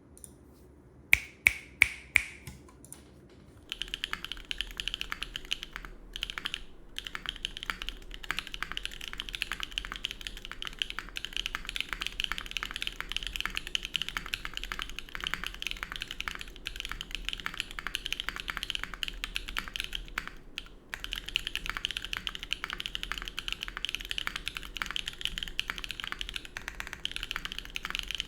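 Mode Envoy mechanical keyboard with stock JWK Tao Yao (Peach Bloom) switches, GMK keycaps, an FR4 plate and no foam, being typed on. Five loud single keystrokes come about a second in, then steady fast typing from about four seconds, with short pauses twice.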